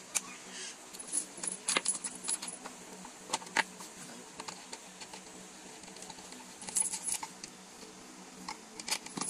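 Light metallic clicks and clinks of office-chair assembly hardware being handled, coming in a few short scattered groups over a faint steady hum.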